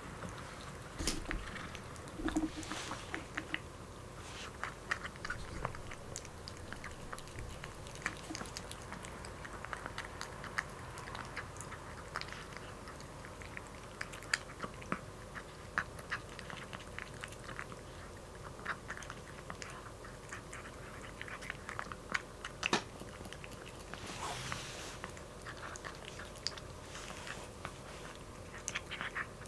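Kitten chewing and crunching dry food from a glass bowl: many small, irregular crunches and clicks.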